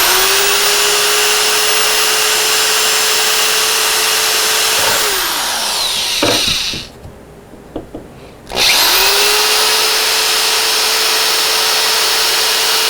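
Electric drill boring holes: the motor spins up, runs steadily for about five seconds and winds down. After a short pause it spins up again about eight and a half seconds in and runs on.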